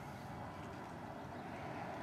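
Steady outdoor background noise: a low rumble and an even hiss with no distinct events.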